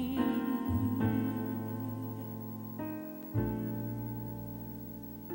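Piano-style keyboard accompaniment to a gospel song: four sustained chords are struck over a few seconds, and each rings out and slowly fades between sung lines. A held, wavering sung note ends right at the start.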